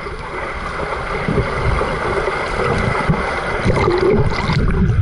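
Underwater sound in a swimming pool, picked up by a camera held below the surface: a loud, muffled churning rumble of water stirred by a child swimming up close to the camera, with a faint steady high tone.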